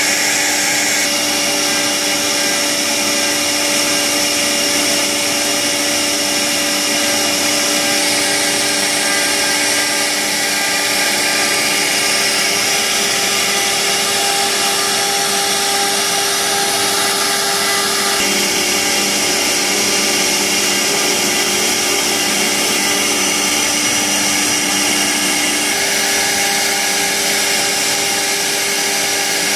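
CNC router spindle running at high speed while its bit carves a relief pattern into a wood panel: a steady whine with several tones over the cutting noise. The tones shift a few times as the bit moves through the cut.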